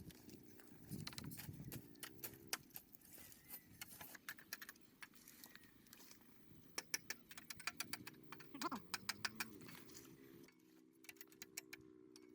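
Scattered sharp clicks and light knocks, irregular and close together, with a cluster of louder ones a few seconds before the end.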